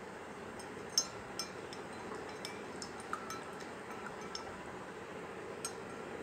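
Spoon clinking lightly against the inside of a drinking glass of water as a paste is swished through the water: about eight soft clinks spread irregularly, the first, about a second in, the loudest, several with a brief ring.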